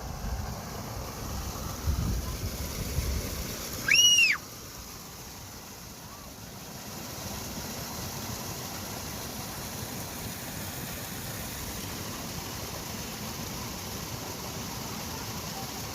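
A single bird call, one loud arched note rising and falling, about four seconds in, over a steady rushing background noise, with some low rumbling in the first few seconds.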